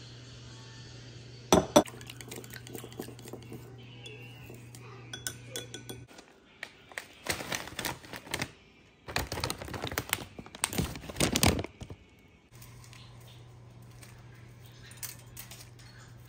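Clinking of a small bowl and utensils against a glass bowl, with a sharp pair of clinks about a second and a half in and more light clinks after. Then, in the middle, the crinkling of a plastic bag of noodles being handled. A low steady hum runs underneath at the start and the end.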